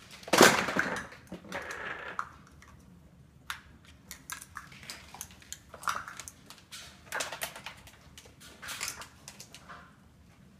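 Hollow plastic stacking cups clattering onto a hard floor as a cockatoo knocks down a tower of them, loudest about half a second in. Scattered clacks and knocks follow as it tosses and shifts the cups.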